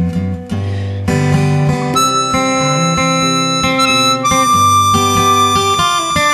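Instrumental break in a blues song: harmonica playing, holding a long note from about two-thirds of the way in, over plucked acoustic guitar.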